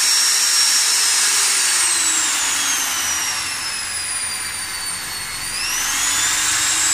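Total 850W corded impact drill running free with no load: a steady high motor whine. The pitch sinks slowly through the middle as the motor slows, then climbs again about five and a half seconds in as it speeds back up on the variable-speed trigger.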